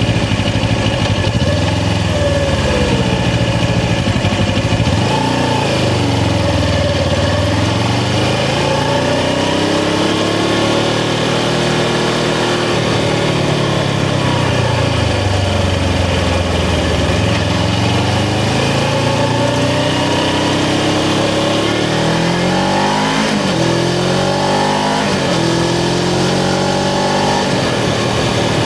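Suzuki GS500's parallel-twin engine under way, its pitch rising and falling as the rider accelerates and eases off. A little over three-quarters of the way through, the revs climb and drop several times in quick succession, like a run of gear changes.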